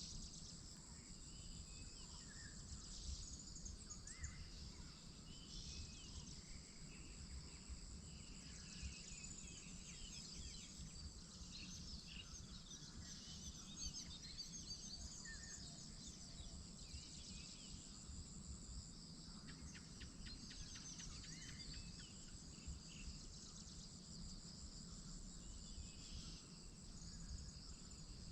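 Insects trilling steadily at a high pitch while many birds chirp and call in short notes throughout, over a faint low rumble.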